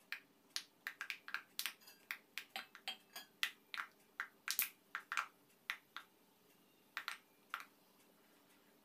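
Raw peanuts frying in hot oil in a small kadhai: the oil spits in irregular sharp crackles and pops, at times several a second, dying out near the end.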